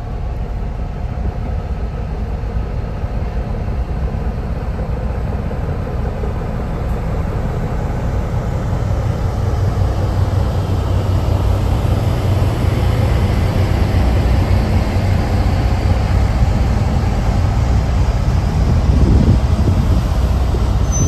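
Heritage diesel train running on the line, a steady low rumble that grows gradually louder.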